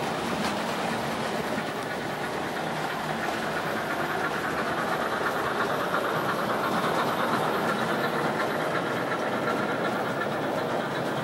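O gauge model express train hauled by an A4 streamlined locomotive running past, its wheels rattling on the track; the noise swells around the middle as the locomotive passes close by.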